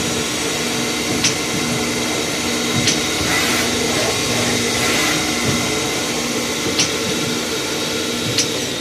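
Benzinger TNI-B6 CNC lathe running: a steady mechanical whir and hum, with four short sharp clicks at irregular intervals.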